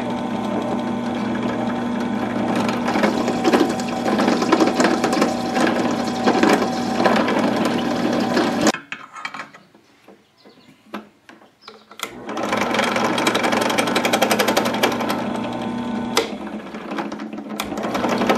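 Benchtop drill press running with its bit cutting into a hand-held copper lug: a steady motor hum under a fine rapid chatter. The sound drops away about nine seconds in and starts up again about three seconds later.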